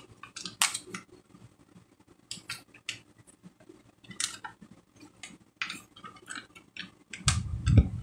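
Crinkling and rustling of a folded diamond painting canvas and its plastic film being unfolded and smoothed flat by hand, with scattered sharp crackles. Near the end a louder low thump and rumble of handling.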